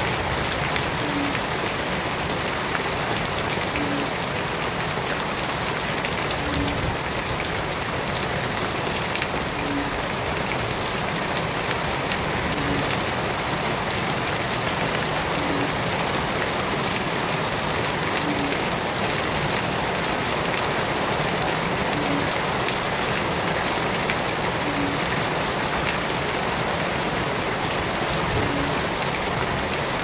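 Shallow water flowing and splashing over a muddy, leafy bed: a steady, even splashing.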